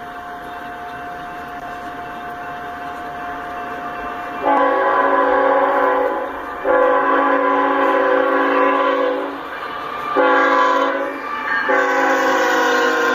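Freight locomotive air horn blowing the grade-crossing signal as the train reaches the crossing: two long blasts, a short one and a final long one held as the train enters the crossing. Before the horn starts, a steady high tone over a slowly rising rumble from the approaching train.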